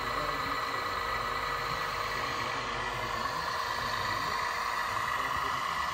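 Radio-controlled model truck or construction machine running: a steady, even electric whine over a hiss.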